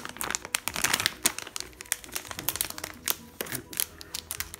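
Clear plastic accessory bag crinkling irregularly as it is handled and opened.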